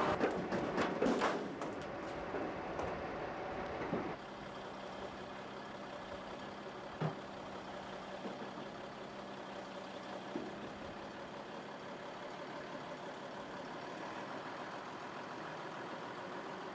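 Heavy recovery truck's engine idling steadily while its crane hoists a load, with a few knocks and clatter in the first couple of seconds.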